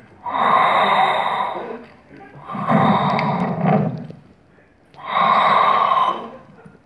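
Darth Vader-style respirator breathing: slow, loud, hissing breaths alternating in and out, three of them, each about a second and a half long with a short pause between.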